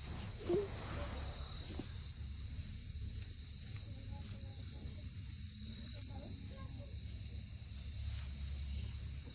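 Crickets chirring in one steady, unbroken high tone over a low rumble, with one brief louder sound about half a second in.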